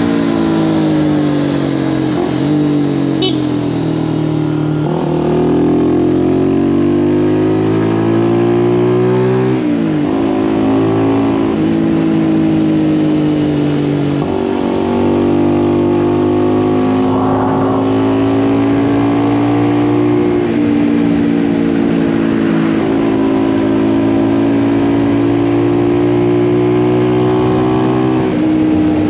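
Zontes U1 125's single-cylinder engine running through a Turbokit GP H3 aftermarket exhaust while riding. The engine note falls off at first, then climbs and drops sharply with gear changes before settling into a steady cruise.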